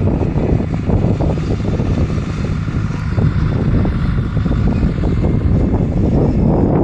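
Wind buffeting the microphone over the steady running of a farm tractor's engine.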